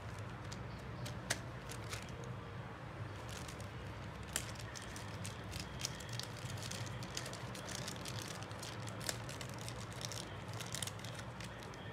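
Small phone parts and tools being handled: scattered light clicks and ticks over a steady low hum.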